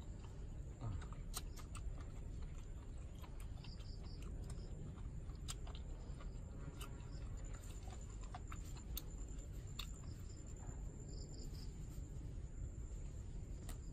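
A man eating roast chicken with his hands: chewing, with scattered sharp clicks and smacks, over a steady low rumble. A few short high chirps come about four seconds in and again about eleven seconds in.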